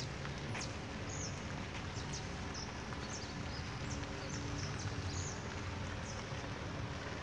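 Small birds chirping: short, high, repeated calls, about two a second, over a steady low background hum.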